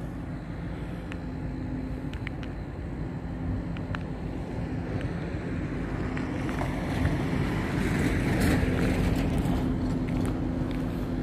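A steady machine hum holding one low tone, under outdoor rumbling noise that swells a little in the second half.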